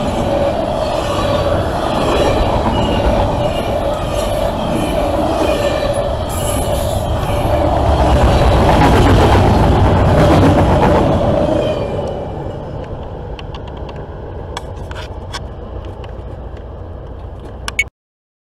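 CSX double-stack intermodal train's container well cars rolling past close by: a steady rumble of steel wheels on rail with a steady ringing tone over it. It is loudest about eight to eleven seconds in, then dies down, with a few sharp clicks, and cuts off suddenly near the end.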